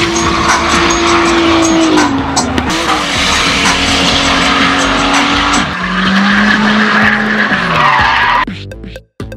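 Drift car engine held at high revs with tyres squealing as the car slides through a corner; the engine note steps down twice. Near the end the car sound cuts off and a rhythmic beat takes over.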